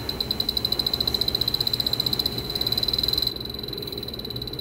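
Electronic refrigerant leak detector ticking rapidly in a high beep, about nine a second, while it sniffs along the copper lines for escaping refrigerant and trace gas. The ticking grows louder a couple of seconds in, then drops off sharply a little past three seconds.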